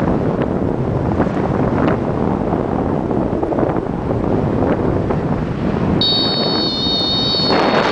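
Strong gusty wind buffeting the microphone with a loud, steady low rush. About six seconds in, a steady high-pitched electronic tone joins it.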